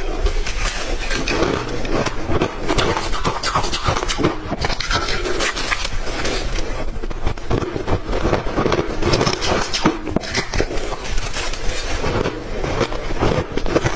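Ice being crunched between the teeth, close to the microphone: a dense, continuous run of sharp cracks and crunches.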